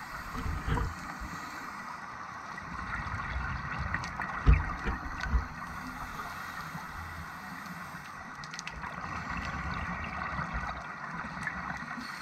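Underwater sound on a scuba dive: a steady wash of water noise, with low gurgling bursts about a second in and again, loudest, around four and a half seconds in, typical of the diver's regulator exhaling bubbles.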